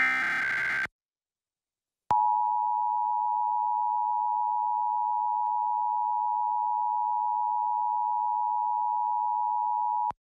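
A burst of Emergency Alert System SAME header data, a harsh digital warble lasting about a second. After a short gap comes the EAS two-tone attention signal (853 and 960 Hz together), sounding steadily for about eight seconds and cutting off abruptly near the end. This is the opening of a required monthly test.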